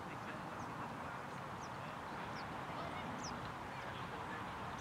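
Steady outdoor background hiss with faint, high bird chirps about once a second.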